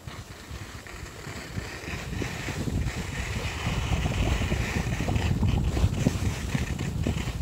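Wind buffeting a handheld phone's microphone as the skier moves downhill, a rough rushing rumble that grows louder over the first few seconds and then holds.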